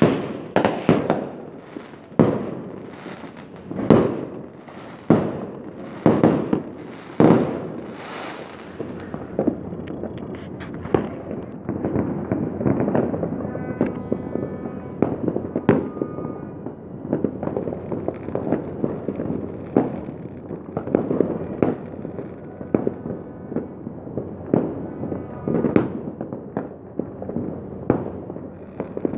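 Fireworks going off in the night sky: loud sharp bangs about once a second for the first eight seconds or so, then a denser run of smaller pops and crackles.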